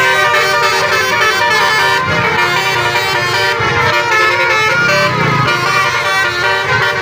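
Multi-tone Basuri telolet bus horn playing a tune: several horn notes sounding together and changing in steps, loud and continuous.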